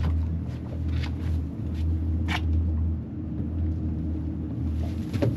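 Twin Mercury Verado V8 outboards idling: a steady low hum with a slightly uneven pulse, with a few light knocks and ticks on top.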